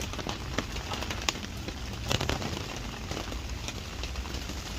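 A fire crackling and popping with scattered sharp snaps, over the steady hiss of heavy rain falling.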